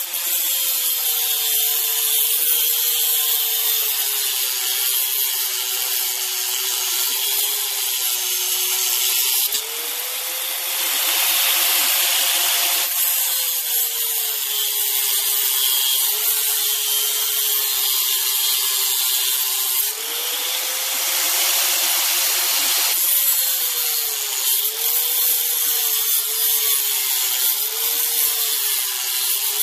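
Bench grinder running with a polycarbonate mirror sheet being ground against its wheel: a steady motor hum that sags in pitch as the plastic is pressed in and climbs back as it is eased off, under a harsh grinding hiss. The hiss grows louder twice for a few seconds, and the pitch dips in quick succession near the end.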